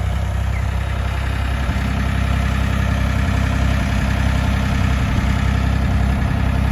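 Farm tractor's engine running steadily, its note filling out a little about two seconds in.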